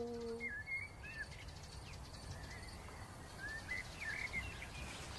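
A man's imitation wolf howl, a long, steady call made through cupped hands, fades out about half a second in. After it comes quiet outdoor background with faint, scattered bird chirps, and no answering howl.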